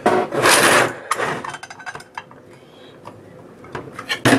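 Handling noise on a plastic scale case: a loud scraping, rubbing rush just after the start and another near the end, with small clicks and knocks between.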